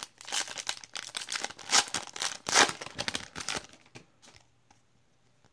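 A trading-card pack's wrapper being torn open and crinkled: a dense, irregular run of tearing and crinkling for about four seconds, then only a few faint ticks.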